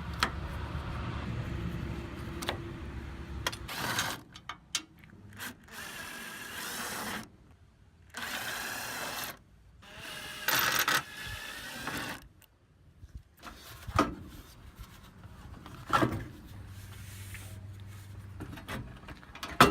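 A power drill/driver runs in several short bursts, as used to take out bolts, with a few sharp metallic clicks.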